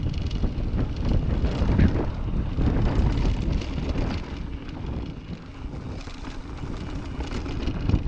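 Wind rushing over the microphone as a mountain bike rolls fast down a dirt trail, with tyre rumble and rattling from the bike over bumps. The rush eases about five seconds in, then builds again.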